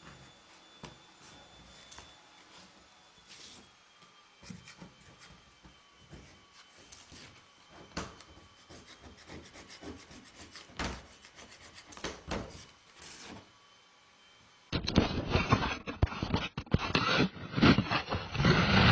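A metal hand scraper scraping heat-softened, blistered paint off a car's steel roof in irregular strokes. It is quiet at first, then much louder and closer from about three-quarters of the way in.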